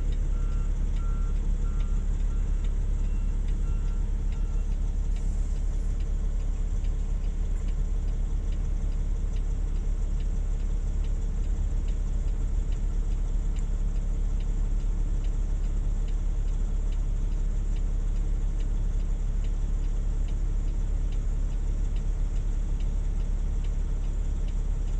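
Heavy diesel engine idling with a steady low rumble. A backup alarm beeps about twice a second for the first four seconds or so.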